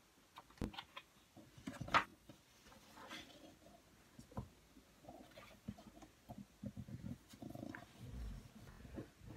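Faint handling of a paperback picture book: the cover opened and pages turned, giving scattered soft clicks and brief paper rustles that are busiest in the second half.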